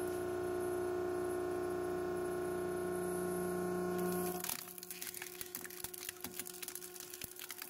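A hydraulic press's pump runs with a steady hum as the ram comes down. About four and a half seconds in, the hum drops and a rapid run of cracks and crackles follows as the ram crushes a BMW car radio's plastic faceplate and sheet-metal case.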